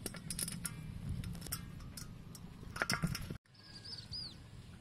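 Hands working chopped garlic and chili onto raw quail on a steel tray: light clicks and clinks against the metal. It cuts off abruptly about three and a half seconds in, leaving a quieter background with one short high chirp.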